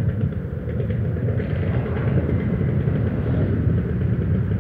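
Motorcycle and car engines idling in traffic stopped at a red light, a steady low rumble. A hissier layer of traffic noise joins about a second and a half in.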